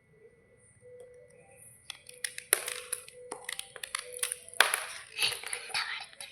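White slate bars crunching and cracking. It is quiet at first, then a dense run of sharp, crisp cracks starts about two seconds in.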